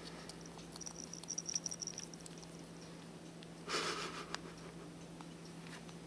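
A young ferret grooming its face with its paws: faint quick clicks of licking a second or two in, and one short, louder rush of noise about four seconds in.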